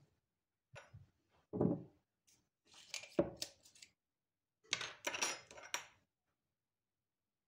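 Kitchen utensils and dishes clinking and knocking in several separate bursts, with a heavier thump about a second and a half in and a longer run of clatter near the end.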